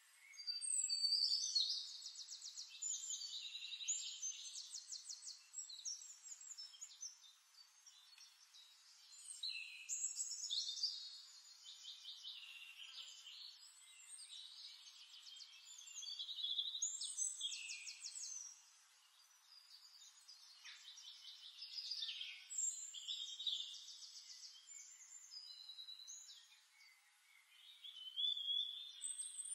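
Songbirds singing on a nature-sound recording: bouts of high, fast trilling phrases that come every five or six seconds.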